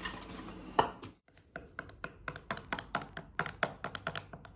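A metal pan of sauced chicken wings being tossed and handled, ending in a knock about a second in. Then comes a quick run of light clicks, several a second.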